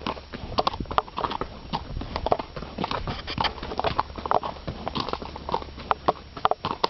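A ridden horse's hooves clip-clopping on a gravelly dirt trail, a steady run of uneven, sharp strikes.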